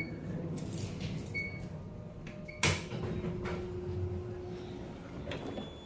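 Elevator equipment at a landing: a sharp click about two and a half seconds in, then a steady hum for about two seconds, over a low background drone.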